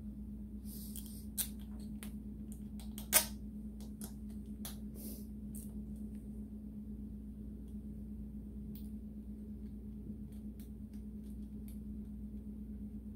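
Scattered small clicks and light knocks of handling wiring leads and connectors at a motorcycle, with a sharp click about three seconds in as the loudest. After that there are only a few faint ticks over a steady low hum.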